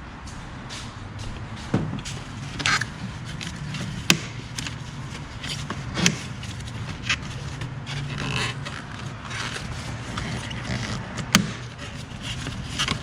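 Scattered sharp clicks and knocks with some scraping: hand work under a car's hood, prying off plastic trim clips and a panel to reach the strut bar. A steady low hum runs underneath.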